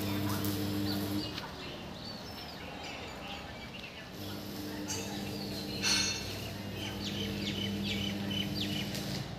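Small birds chirping in short, quick calls, over a steady low hum that drops out for about three seconds after the first second and then comes back. A brief louder rustle or knock about two-thirds of the way in.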